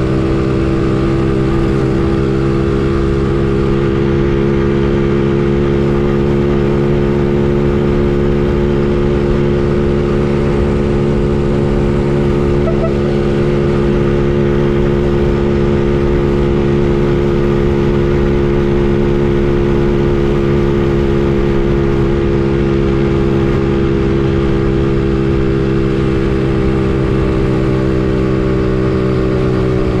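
Honda C70's small four-stroke single-cylinder engine running at a steady cruising pace under way, its pitch holding level.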